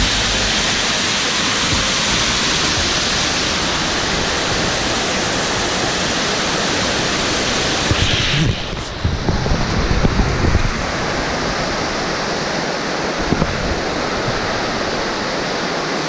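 Rain-swollen waterfall cascading over rocks: a loud, steady rushing of water. A few uneven low bumps and rumble come in about halfway through, then the rushing goes on.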